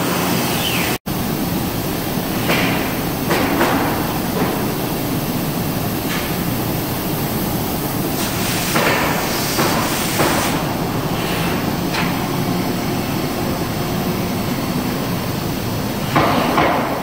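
Steady noise from a Homag flatbed CNC and its dust extraction, with irregular knocks and clatter as cut 3/4-inch melamine panels are pushed off the bed onto the outfeed table. The sound cuts out for an instant about a second in.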